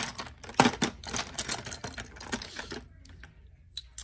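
Small plastic jars of nail-art glitter and decorations clicking and clattering against each other as they are handled: a quick run of sharp clicks for about three seconds, then a few stray taps.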